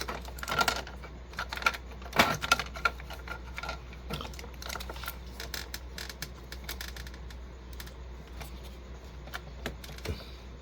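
Irregular light clicks and taps of plastic parts being handled: a printer ink cartridge and an ink syringe with a suction tip being fitted together. The clicks come thickest in the first few seconds, over a steady low hum.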